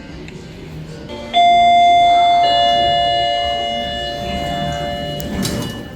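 Lift arrival chime: two electronic notes, the second lower than the first, each ringing on and fading away. The falling pair signals a car about to go down.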